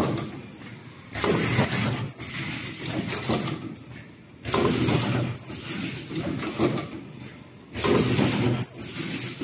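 Automatic cup-mask headband welding machine working through its repeating cycle: a sudden burst of mechanical and air noise about every three seconds, three times, each fading before the next, with a short high-pitched chirp about a second into each cycle.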